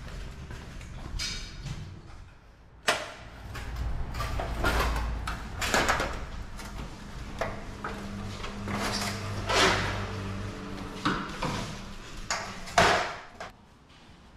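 Irregular clunks and knocks of a metal motorcycle mover dolly being wheeled across a tiled floor with a motorcycle on it, with a low rolling hum through the middle of the stretch.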